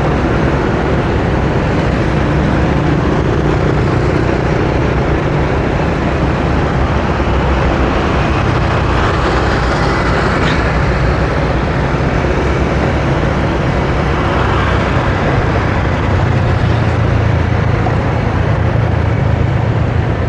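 Steady road traffic noise from a busy highway: vehicle engines and tyres.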